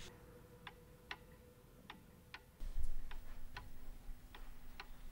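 Clock ticking, about two ticks a second, over a faint steady hum, with a short low thud about two and a half seconds in.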